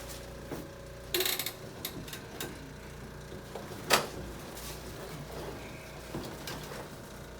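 Scattered clicks and knocks from a chiropractic treatment table as the patient shifts position on it. There is a short rattle about a second in and one sharp click near four seconds, over a faint steady room hum.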